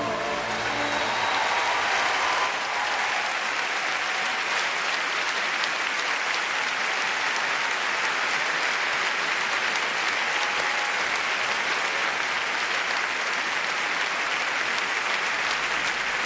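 A large audience applauding steadily. The last note of the singer, choir and orchestra dies away in the first second or two as the clapping swells.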